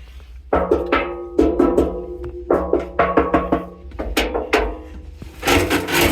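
Music made of sharp, struck percussive notes that ring briefly at several different pitches, coming in irregular groups.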